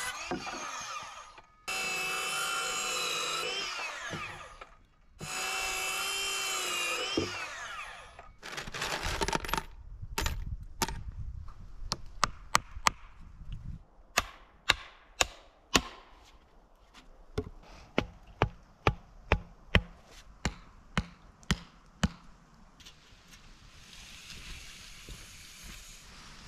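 Ryobi cordless circular saw making three short cuts through scrap boards, its whine sagging in pitch as each cut loads it. Then a hammer nailing the boards together into a wooden concrete-form box, in quick runs of sharp strikes about two a second.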